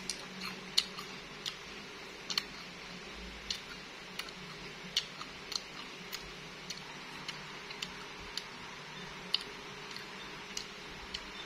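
Irregular sharp, crisp clicks and crunches of a mouth chewing raw bilimbi (belimbing sayur) fruit close to the microphone, over a faint steady background hum.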